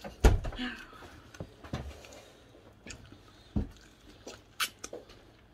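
A person biting and chewing chicken held in the hands, with one sharp loud bite just after the start and scattered smaller mouth clicks and smacks after it.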